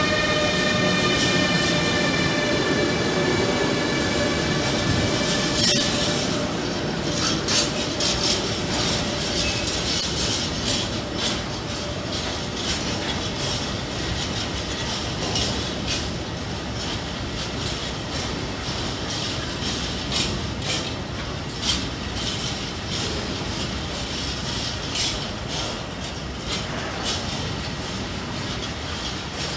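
Freight train of hopper wagons hauled by Siemens Vectron electric locomotives rolling past. A whine with several tones falls slightly in pitch and fades out over the first six seconds as the locomotives go by. After that comes a steady wheel-and-rail rumble with many sharp clacks as the wagons' wheels cross rail joints.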